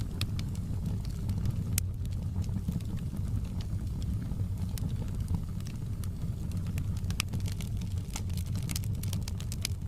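Fire in a fireplace crackling: scattered sharp pops and snaps over a steady low rumble of flames, the pops coming thicker near the end.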